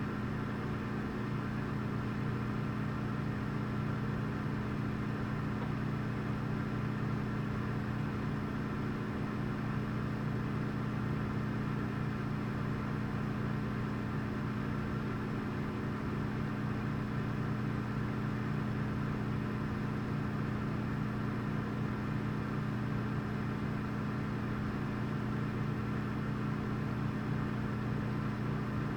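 Refrigerator humming steadily: a constant low electrical drone that does not change.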